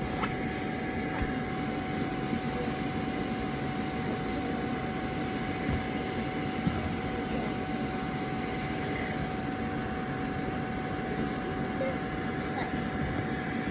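Steady mechanical hum with a constant high whine, unchanging throughout.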